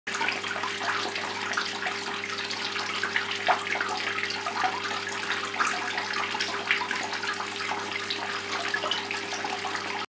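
Water from a small tabletop waterfall fountain falling in thin streams and splashing steadily into its basin, with a steady low hum underneath.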